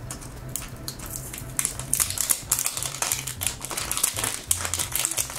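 Thin plastic wrapper crinkling and crackling as it is torn and peeled off a hard plastic capsule ball, in a quick irregular run of sharp crackles.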